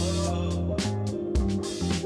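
Background music: a funk/soul-style track with bass, guitar, and a regular drum beat.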